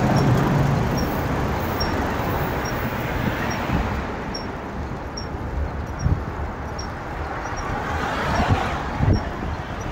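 Road traffic on a multi-lane street: a steady rumble of cars going by, with one vehicle passing more loudly near the end, heard from a bicycle on the sidewalk alongside. A few low thumps come through, typical of the bike rolling over bumps or of wind on the microphone.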